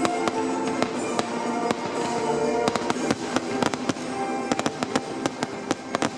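Fireworks crackling and popping in rapid, irregular succession, many sharp reports a second, over music with held tones playing along with the show.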